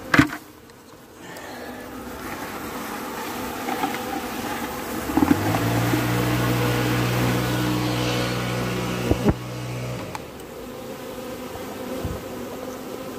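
Honeybees buzzing as they fly up out of a bucket of freshly shaken bees. A sharp knock comes at the start, and in the middle a loud steady low hum lasts about five seconds before cutting off suddenly.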